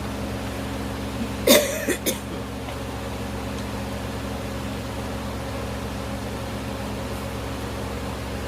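A steady low mechanical hum with several held tones. About a second and a half in comes one short, sharp clatter with a brief squeak, and then the hum carries on unchanged.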